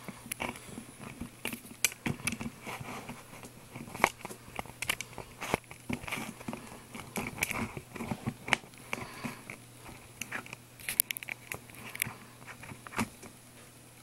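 Irregular light plastic clicks and taps from a wireless mini keyboard's buttons and touchpad being worked, over a faint steady hum.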